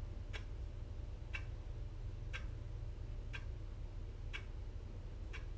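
A clock ticking steadily about once a second over a low steady hum.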